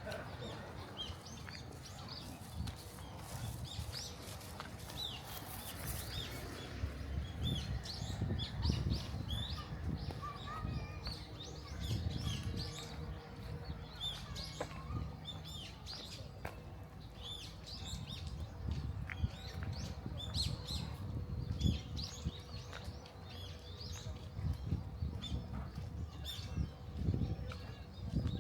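Small birds chirping over and over in short calls, with a low rumble underneath.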